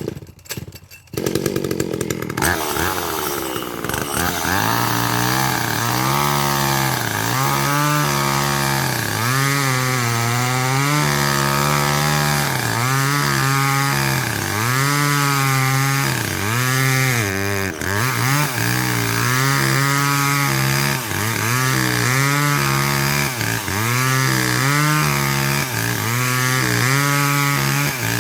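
Two-stroke chainsaw coming in abruptly with a few uneven bursts, then running continuously, its engine pitch rising and falling over and over as it cuts into poplar wood.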